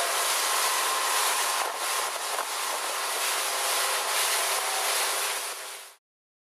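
Rush of wind and churning wake water past a speedboat under way at speed, with the boat's engine faintly under it. The sound holds steady, then fades out quickly just before the end.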